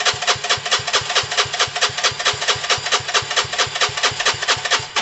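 Gilera DNA 125's single-cylinder four-stroke engine cranked on its electric starter, turning over in an even beat of about five compression strokes a second without catching, and cutting off at the end. It won't fire because no fuel is reaching it: the fuel pump isn't pumping.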